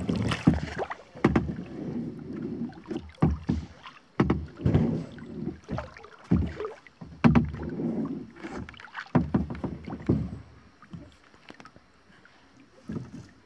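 Kayak paddle strokes dipping and splashing in calm lake water, with drips and light knocks, about one stroke a second, fading out near the end as the kayak glides.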